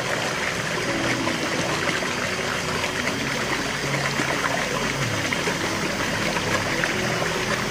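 Shallow stream splashing steadily over boulders in a small cascade into a rocky pool.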